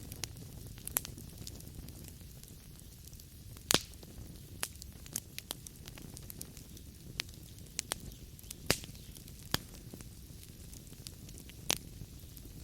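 Wood fire burning in a fireplace: a low steady rumble of flames with scattered sharp crackles and pops of burning logs, three of them louder, about a third of the way in, two thirds in and near the end.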